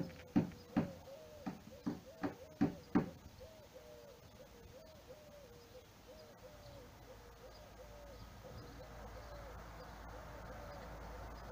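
A short hooting note repeats about twice a second throughout. A run of about eight sharp knocks comes in the first three seconds, and background hiss rises near the end.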